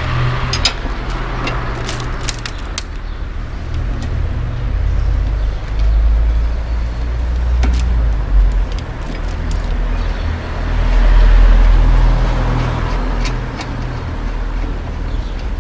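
Street traffic passing, with a low rumble of cars that swells twice, about six and eleven seconds in. Scattered light clicks and taps come from hands working on the bike's rear wheel and gears.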